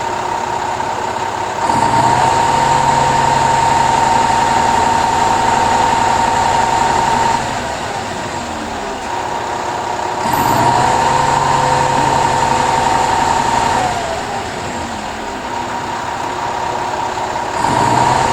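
Work truck engine running at idle, speeding up three times to a louder, higher running speed with a steady whine for several seconds before dropping back.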